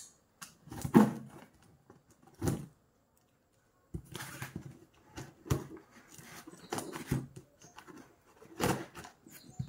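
Cardboard parcel being handled and opened with scissors: scattered taps, scrapes and rustles, with a sharp knock about a second in. The sound drops out completely for about a second near the middle, then the handling noises resume.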